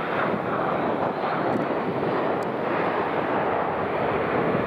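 Steady jet noise from a Boeing 777-300ER's two GE90-115B turbofans at takeoff power as the airliner climbs out.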